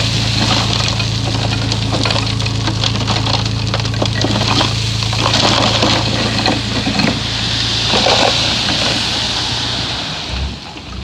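Komatsu bulldozer's diesel engine running steadily under load, with dense crackling and crunching of soil and clods breaking as the blade pushes fill. The engine drops away near the end.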